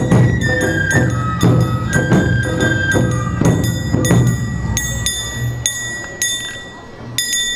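Awa odori band playing: drums beating about twice a second under a melody, with ringing metallic clangs of a hand-held gong. About two-thirds of the way in, the drums drop away, leaving a few final ringing clangs as the piece ends.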